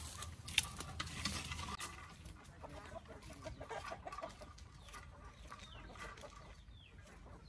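Chickens clucking in short, repeated calls, with a few light clicks of footsteps near the start.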